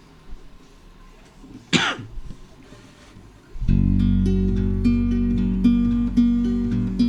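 Acoustic guitar music with strummed, repeating chords starts suddenly about halfway through. Before it there is a low background hiss and one brief, sharp noise, such as a cough, just under two seconds in.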